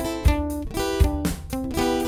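Background music: guitar playing over a steady low beat.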